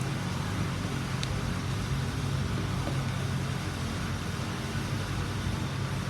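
Steady low background hum and rumble, with one faint click about a second in.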